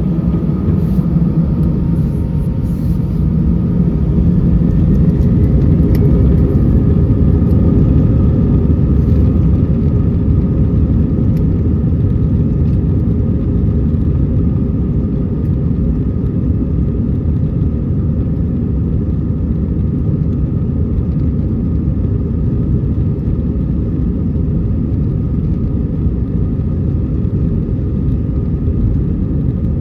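Airbus A320-200 jet engines at takeoff power, heard from inside the cabin as a loud, steady low rumble with a faint whine above it. The rumble swells over the first several seconds, then eases slightly.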